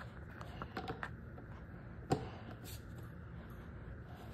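Scattered light clicks and taps of hands handling parts and wires during assembly, with one sharper knock about two seconds in.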